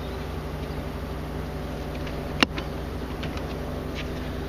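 Steady low mechanical hum of a small motor on a bass boat, with one sharp click about two and a half seconds in.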